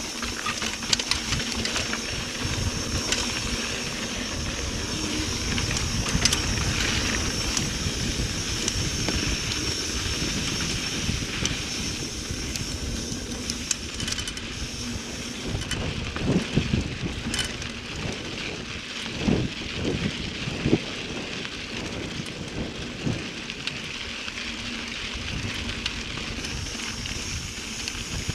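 Mountain bike rolling over a dirt trail: steady tyre noise and rattling of the bike over the rough ground, with wind rumbling on the camera microphone and a few louder knocks from bumps in the middle.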